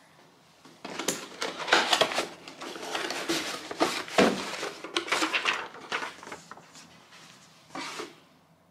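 Hard objects being handled: a run of clattering knocks and scrapes lasting about five seconds, then one more knock near the end.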